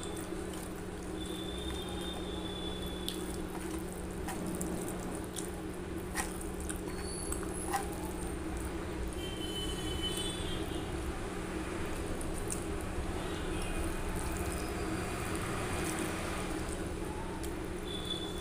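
A hand squishing and mixing cooked rice with wet curry on a steel plate, making soft wet squelching sounds with a few light clicks. A steady low hum runs underneath.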